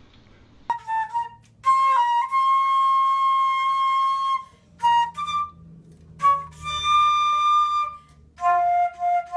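Silver concert flute playing a slow melody of long held notes, with short breaks between phrases and a lower note near the end.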